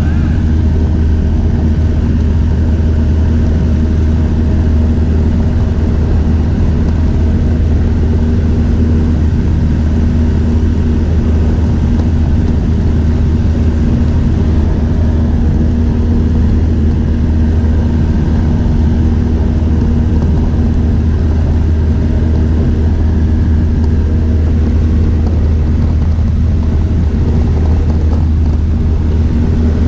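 Engine and propeller of a high-wing light aircraft in flight, a loud, steady drone heard from inside the cabin.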